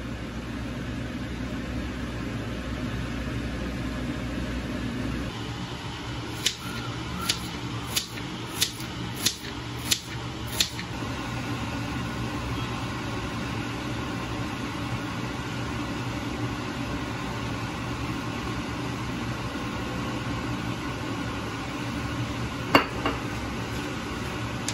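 Gas stove igniter clicking seven times, about one and a half clicks a second, over a steady kitchen hum. A single clunk comes near the end.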